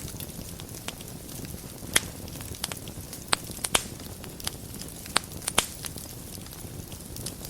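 Wood fire burning in a fireplace: a steady low rumble of flames with scattered sharp crackles and pops, the loudest pops at about two, three and a half, and five and a half seconds in.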